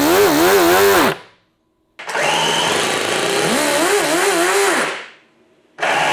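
Miniature four-cylinder glow-plug model engine being spun by an electric starter and firing, its pitch climbing and wavering as it catches and revs. The sound comes in three bursts that each stop abruptly: the first ends about a second in, the second runs about three seconds, and a short one falls near the end.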